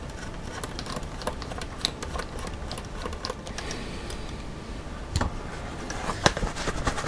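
Light, irregular clicks and ticks of a hand hex driver turning small M3 countersunk screws into a carbon-fibre chassis plate, with two louder knocks about five and six seconds in. Cloth rustles near the end.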